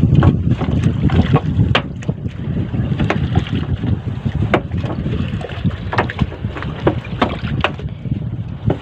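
Water splashing and dripping in many short irregular strokes as a wet fishing net is hauled into a small outrigger canoe, with wind buffeting the microphone in a steady low rumble.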